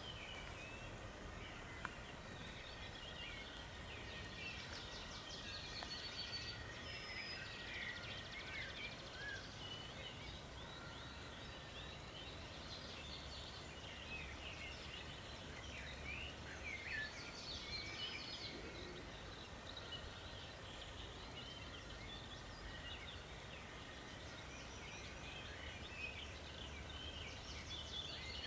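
Songbirds singing in chorus, with many overlapping chirps, trills and short whistles throughout, over a low steady rumble.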